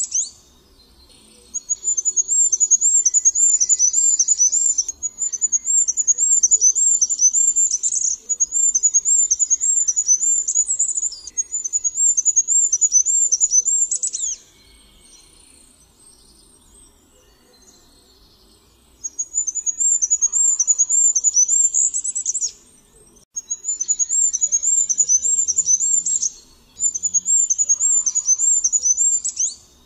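Goldcrest singing: a very high, thin song of rapid repeated notes in phrases of a few seconds, each ending in a short flourish. There are about six songs, with a pause of several seconds in the middle.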